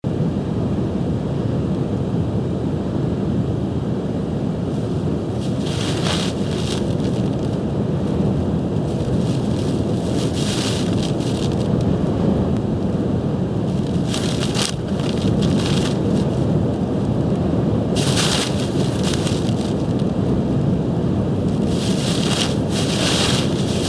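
Storm-force wind buffeting the microphone with a steady low rumble, while large waves break on the Lake Erie shoreline, each arriving as a hissing crash about every four seconds.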